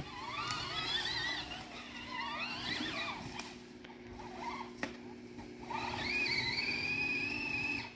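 Huffy Torex ride-on ATV's drive running, a steady low hum with a wavering high whine over it that settles into a steady high tone about six seconds in, then cuts off at the end.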